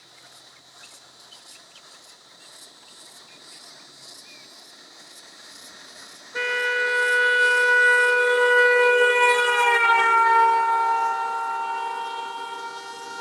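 A vehicle horn sounds one long blast, starting suddenly about halfway in. Its pitch drops slightly near the end, as a passing vehicle's would, and it slowly fades.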